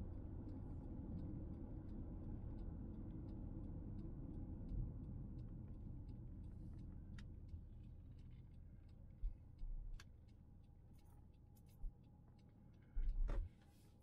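Low rumble of a car on the road, with faint scattered ticks over it. The rumble dies down over the second half, and a few dull thumps come near the end.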